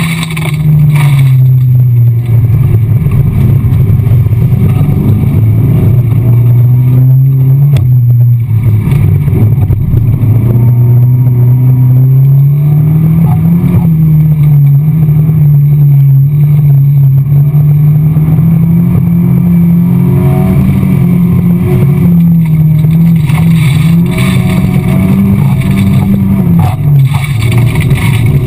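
Race car engine heard from inside its stripped cabin, running hard and loud on a dirt track. Its revs drop at the start, stay low for several seconds, climb about halfway through, hold higher, then drop again near the end.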